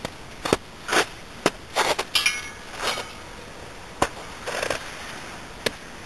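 Footsteps crunching in crusty snow, irregular, with a few sharp clicks between them, fading after about five seconds.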